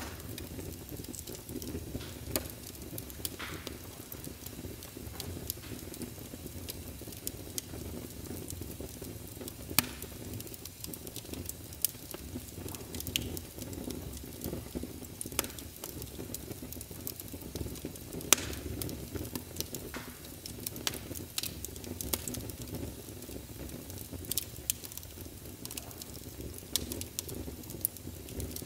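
Wood fire crackling, with sharp pops scattered irregularly over a low steady rumble.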